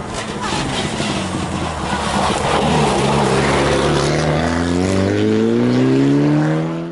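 Rally car approaching and passing through a corner at speed, its engine pulling hard, then rising steadily in pitch as it accelerates away.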